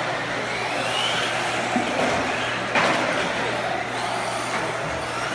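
Redcat Volcano EPX Pro electric RC trucks racing, their brushless motors whining up in pitch as they accelerate, over a steady rush of noise. A sharp knock comes just under three seconds in.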